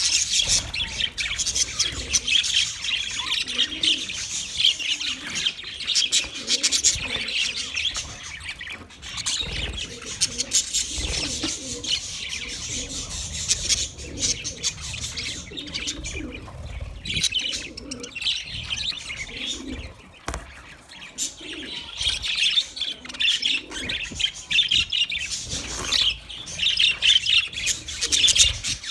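Budgerigars chirping and chattering, a dense run of quick high chirps that thins out for a while in the middle and grows busy again near the end.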